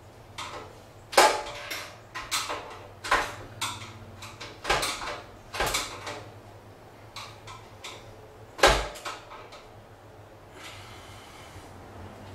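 Clanks and clicks of a screwdriver and hands on the sheet-metal wiring compartment of a ceiling-mounted electric garage heater: about a dozen sharp metallic knocks at uneven intervals, the loudest about a second in and again near nine seconds, then a short rustle near the end.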